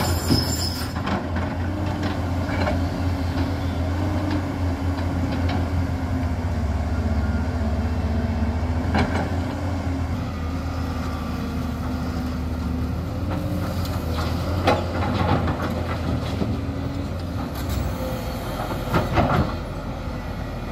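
Diesel engines of JCB tracked excavators running under load while they dig and load earth into a tipper truck: a steady low drone, broken by a few sharp knocks.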